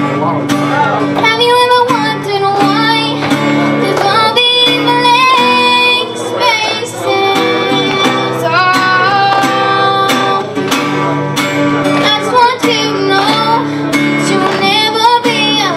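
A young girl singing a song while strumming an acoustic guitar.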